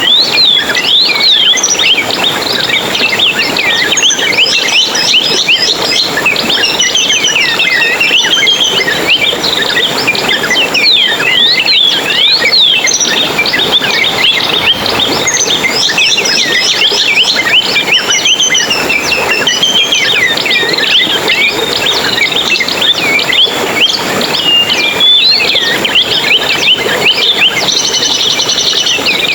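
Dense chorus of many small songbirds twittering and chirping at once, with quick high chirps and warbled phrases overlapping continuously, and a fast, even trill near the end.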